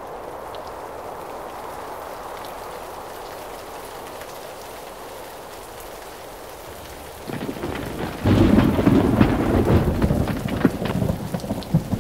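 Steady rain hiss, then about seven seconds in a loud rumble of thunder breaks in over heavier rain, with many sharp crackles.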